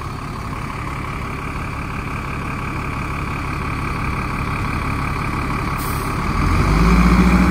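Nova Bus LFS city bus's rear-mounted diesel engine idling with a steady whine, then revving up a little after six seconds in as the bus pulls away from the stop.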